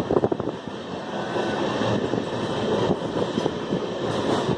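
Train running noise heard from aboard a moving carriage: a steady rumble of wheels on the rails mixed with rushing air, with a few short knocks near the start.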